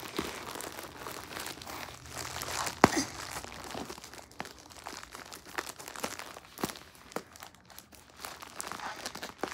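Grey plastic poly mailer bag crinkling and rustling as it is squeezed and pulled at by hand in an attempt to open it, with irregular crackles and a sharp snap just under three seconds in.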